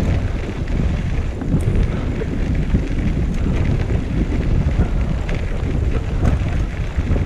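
Wind buffeting the microphone of a camera on a moving recumbent trike: a steady low rumble, with the tyres rolling over a dirt trail and a few faint ticks.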